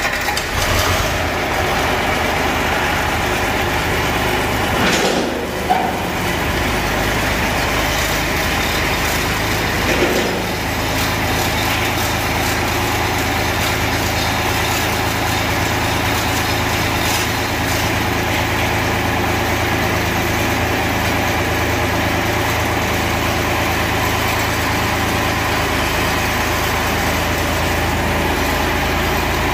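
A vehicle engine running steadily, with a steadier, deeper hum settling in about ten seconds in.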